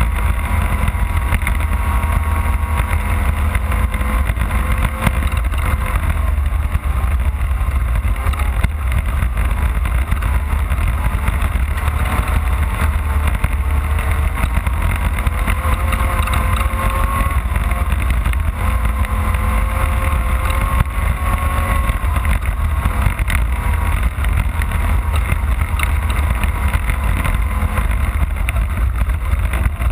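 Off-road race car's engine running steadily under load, its pitch drifting gently up and down, over a heavy low rumble of the vehicle pounding along the course.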